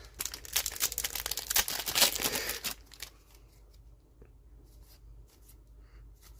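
Plastic trading-card booster pack wrapper crinkling and tearing for about three seconds, then a few faint rustles and clicks.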